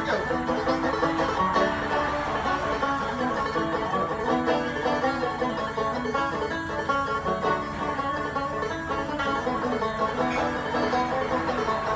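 Banjo playing a bluegrass tune, a quick, unbroken run of plucked notes.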